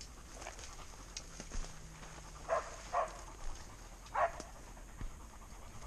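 A dog barking: two short barks about half a second apart, then another a second later.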